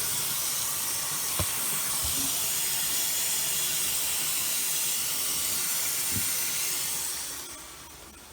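Water tap running steadily into a sink as slime is rinsed off, turned off about seven seconds in, with a few light knocks of things against the sink.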